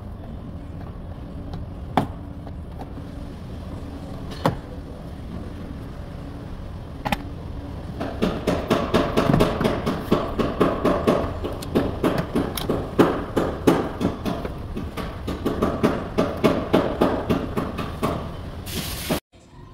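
Inner door trim panel of a Toyota Highlander being pulled off: a few single sharp clicks, then from about 8 s in a long run of rapid plastic clicks and knocks as the panel's retaining clips let go.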